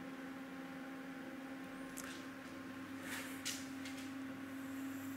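Steady low electrical hum with a few faint, short drawing strokes about two and three seconds in.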